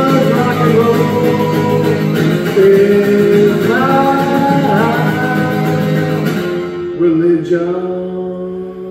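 A man singing to a strummed acoustic guitar. About six seconds in, the strumming stops and a last chord and a held, wavering sung note ring out and begin to fade.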